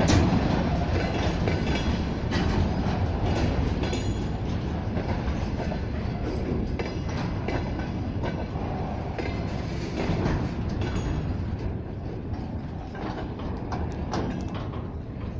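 Loaded container flat wagons of a freight train rolling past, the wheels clattering over the rail joints with irregular metallic clanks and knocks over a steady rumble that slowly fades toward the end.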